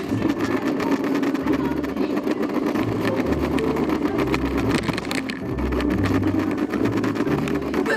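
Background music with a driving bass line that changes note every second or so over a dense, buzzing texture.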